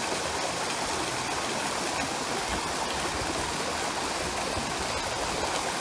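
Mountain stream water rushing and splashing over rocks, a steady even rush.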